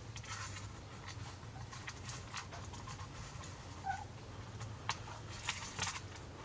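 Faint scattered clicks and rustles of small wires and components being handled, over a low steady hum, with one short high blip about four seconds in.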